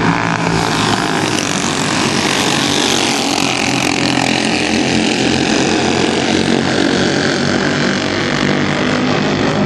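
Race car engines running at speed on the track, several at once, with the sound swelling as cars pass between about one and four seconds in.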